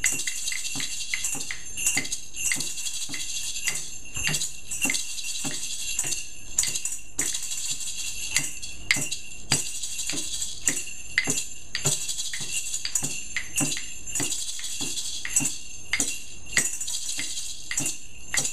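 A small hand-percussion group playing a steady rhythm together. Tambourine and bell-shaker jingles and maraca rattle run continuously over hand-drum beats and wood-block clicks, with sharp accented strokes a few times a second.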